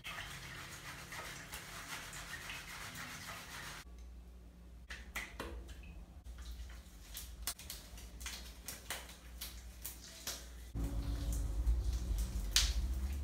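Wet hair being lathered and worked by hand in a small tiled shower: a steady hiss of running water for the first few seconds, then scattered soft wet clicks and squishes, with a low rumble coming in near the end.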